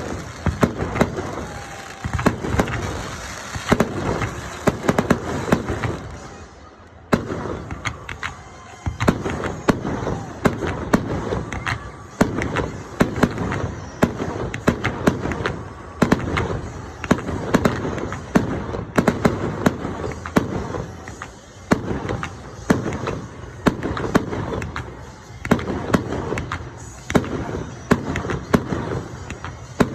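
Fireworks display going off: a rapid string of sharp bangs and crackling reports, several a second, with a short lull about seven seconds in before the barrage picks up again.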